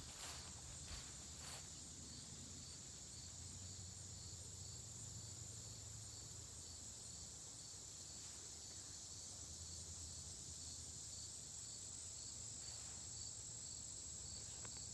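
Steady, faint, high-pitched insect chorus with a faint regular pulsing. A couple of rustling steps through the plants are heard in the first second or two.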